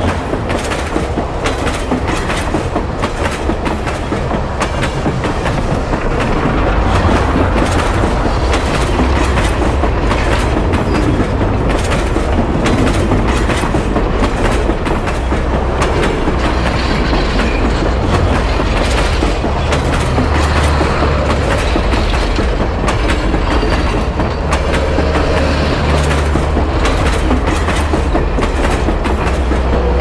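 Train passing close by: wheels clacking over the rail joints above a steady rumble, which deepens and grows louder about six to seven seconds in.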